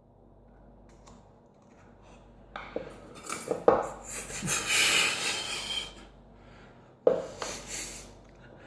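Small metal parts of a Sargent mortise lock cylinder clicking and rattling as the lock is taken apart, with a sharp click a little before 4 seconds and a second short burst of clinks near the end.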